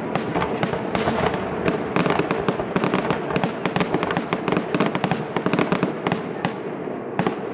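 Fireworks display: a dense run of rapid bangs and crackles, many a second, thinning out near the end.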